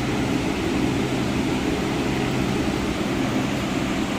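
Steady mechanical hum, an even drone with a low buzzing tone and no separate knocks.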